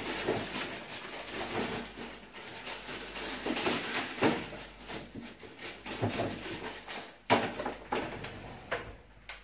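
Dry rustling and handling noises with a few knocks, the loudest about seven seconds in, as an onion is picked out and handled by hand.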